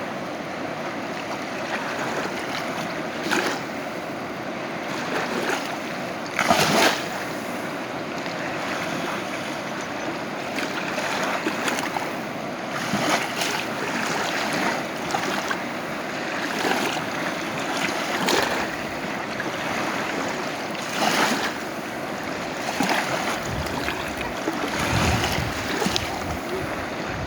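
The Kali Gandaki river rushing past: a steady wash of flowing water that briefly surges louder now and then.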